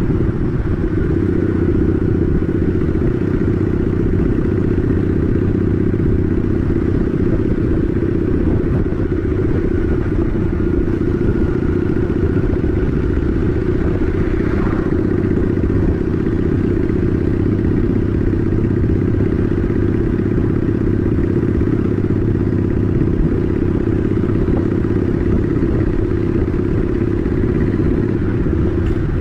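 Honda Shadow 750 ACE's V-twin engine running steadily at a cruise, with a low, even exhaust note.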